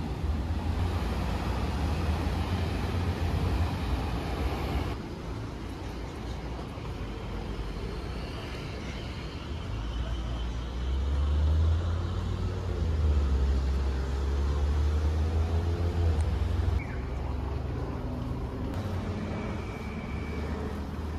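Low, steady rumble of road vehicles, changing abruptly a few times as the clips cut.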